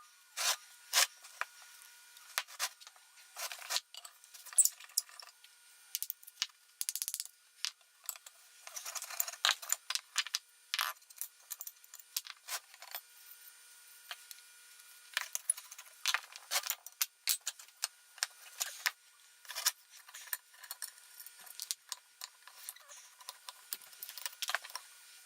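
Metal parts of an old hand plane clinking, rattling and scraping as they are handled, in irregular clatters with quiet gaps between.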